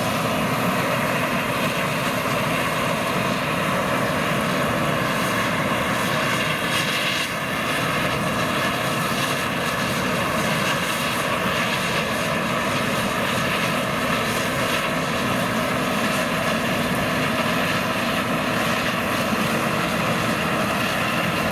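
Machinery running steadily: a constant drone with several held tones and no break.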